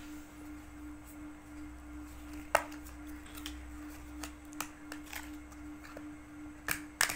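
Plastic clicks and light scrapes of fingers prying the snap-on back cover off a Vgo Tel S500 keypad phone: one sharp click about two and a half seconds in and a few more near the end, over a steady hum.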